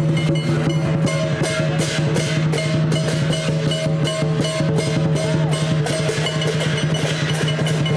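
Music with a steady drum beat: strikes at about two to three a second come in about a second in, over sustained pitched tones.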